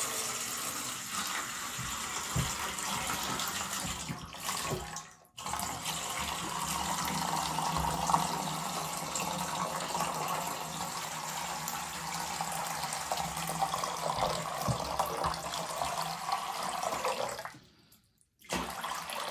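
Water running from a tap in a steady splashing stream. It breaks off briefly twice, about five seconds in and again near the end.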